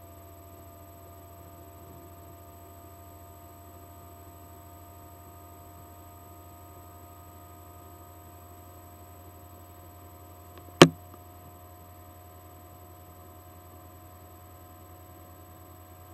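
Low steady electrical hum with faint steady tones above it, and one sharp click about eleven seconds in.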